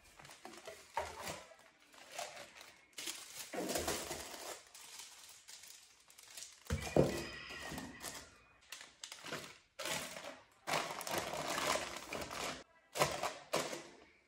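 Plastic-wrapped grocery packets and cardboard boxes rustling and crinkling as they are handled and set down on cupboard shelves, with several knocks as packages land. The loudest is a sharp thud about seven seconds in.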